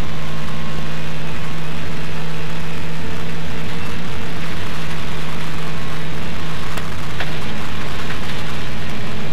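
Rally car engine running flat out inside the cabin, a steady engine note over the rush and rattle of gravel under the tyres, with a brief dip about seven seconds in.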